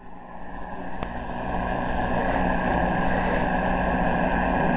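Grundig Satellit 750 shortwave receiver on its telescopic whip antenna, tuned to Radio Australia on 12065 kHz. It plays a steady rush of static and interference with the announcer barely audible beneath it, the sign of poor reception on the whip. The noise swells up over the first couple of seconds, with a faint click about a second in.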